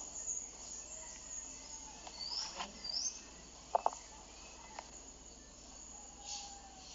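Insects buzzing in a steady high-pitched chorus, with a few bird chirps: two short rising chirps a little before the middle. A brief sharp note, the loudest sound, comes just before the middle.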